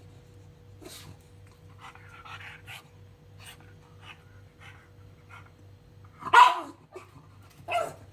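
Pug making short breathy panting noises, then two loud barks about six and a half seconds in and again near the end, the first the louder.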